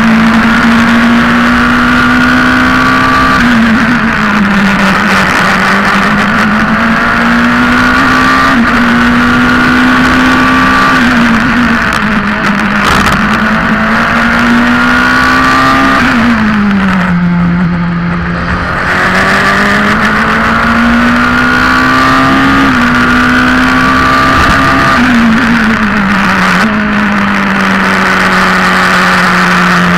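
Formula Two race car's engine heard from the cockpit at racing speed, the note climbing through the gears with a short drop at each upshift, over a steady rush of wind and tyre noise. About halfway through the note falls and the engine goes quieter off the throttle for a second or two before climbing again. Near the end the note steps down in a run of downshifts.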